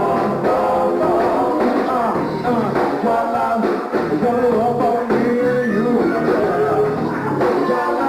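Live R&B band playing a song, with a gliding melodic lead line over the band.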